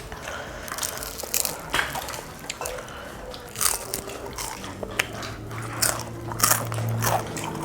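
Close-up crunchy bites and chewing of deep-fried mixed-vegetable pakora, with repeated sharp crunches. A low steady hum runs through the second half.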